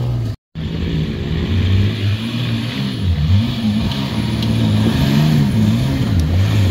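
Off-road 4x4's engine revving up and down under load as it crawls up a steep rocky slope, its pitch rising and falling again and again. There is a brief dropout about half a second in.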